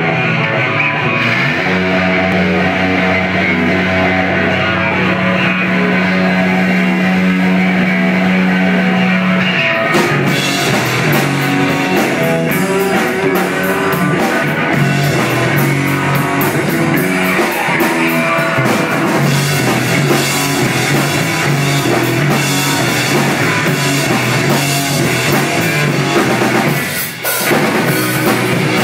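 Live rock band playing loudly through amplifiers: electric guitars and a drum kit. Guitar plays alone at first over a held low note, the drums and full band come in about ten seconds in, and near the end the band stops for a moment before crashing back in.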